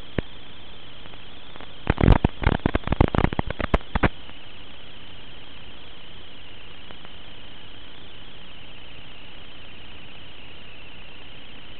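Steady hiss with a faint wavering high whine from the audio channel of an analog FPV video feed. About two seconds in, a burst of loud, sharp crackling clicks lasts about two seconds.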